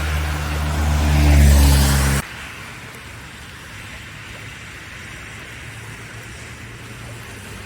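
A motor vehicle engine running close by, growing louder over the first second and a half, then cut off abruptly about two seconds in. After the cut there is a quieter, steady low hum with hiss.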